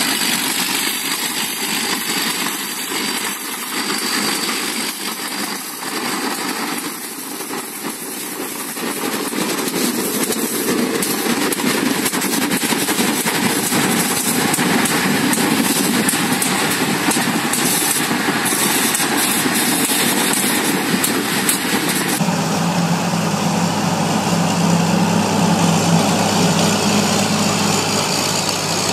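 Engines of small crawler tractors tilling a flooded rice paddy, running steadily under load. About 22 seconds in the sound changes abruptly to another machine with a deeper, steadier engine hum.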